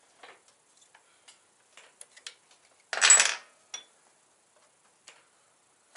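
Hand tool and steel shift-lever parts of a Ducati Hyperstrada clicking and tapping as the shifter pivot shaft is tightened, with one louder metallic clatter about three seconds in.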